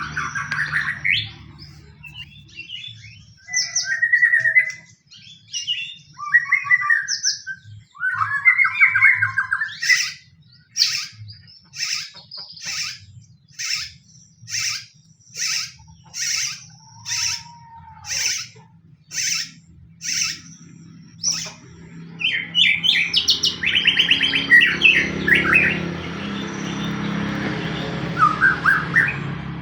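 White-rumped shama (murai batu) singing in aggressive fighting-style song: varied quick phrases, then about a dozen sharp, loud notes at a steady beat of just over one a second, then a dense, rapid burst of song.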